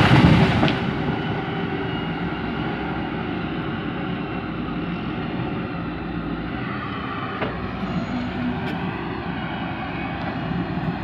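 A large tree crashing to the ground, loudest in the first second and dying away, then a CAT hydraulic excavator's diesel engine running steadily.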